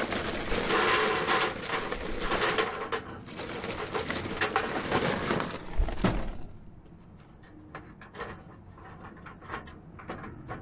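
Charcoal briquettes poured from a paper bag into a small metal grill, rattling and clattering for about six seconds and ending with a thump. After that come quieter scattered clinks as the briquettes are shifted around in the grill.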